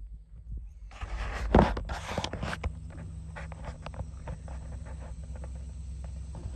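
Footsteps and scuffs on a rubber EPDM membrane roof: a run of uneven knocks, the heaviest thump about a second and a half in. Under them a steady low rumble, joined about a second in by a rushing hiss like wind on the microphone.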